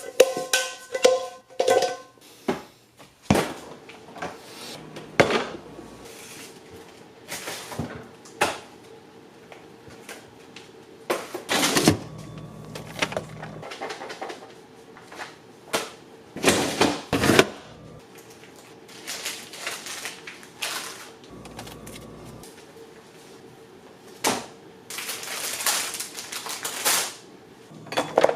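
Kitchenware being handled during breakfast preparation: irregular clicks, knocks and clatters of dishes, pans and utensils. A struck piece of kitchenware rings briefly near the start, and a longer hissing stretch comes near the end, over a faint steady hum.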